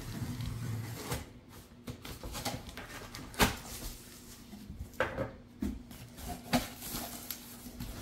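Knife cutting through packing tape on a large cardboard box, then the cardboard being lifted and handled, with a few sharp knocks and taps.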